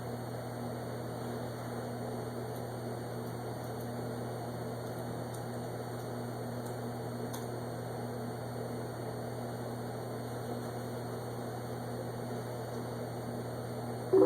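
Dead air on a NOAA Weather Radio broadcast: a steady low electrical hum with hiss from the receiver, the programme audio gone. A short louder burst comes right at the end.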